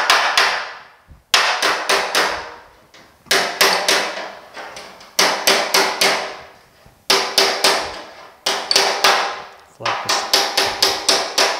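Body hammer striking the steel lip of a 1950 Chevy truck's running board, with a dolly held behind the panel and the blows landing next to it, to straighten the lip. Quick runs of four to six ringing metal blows, a new run about every two seconds.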